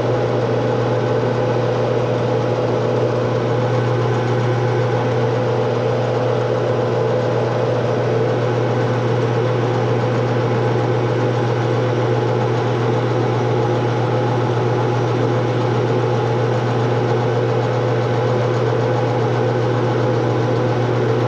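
Metal lathe running steadily, its motor and gear head humming at one even pitch with the chuck spinning a hardened steel axle shaft.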